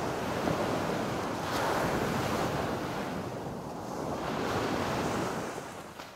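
An even rushing noise like surf that swells twice and fades out at the end.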